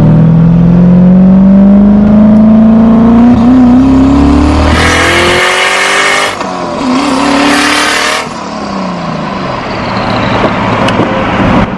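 Turbocharged Ford Crown Victoria V8 pulling hard at full throttle, revs climbing steadily for about five seconds on about 10 pounds of boost. Then comes a loud rushing hiss of released boost as the throttle closes, a brief second burst of acceleration with another hiss, and the engine winding down near the end.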